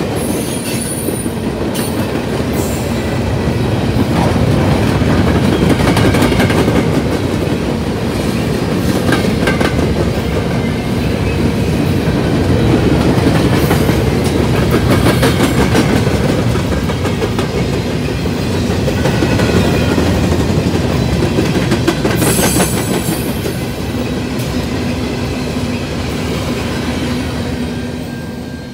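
Freight train of covered hopper cars rolling past, wheels clattering rhythmically over the rail joints, with brief high-pitched wheel squeals about a second in and again around 22 seconds. The sound falls off near the end as the last car passes.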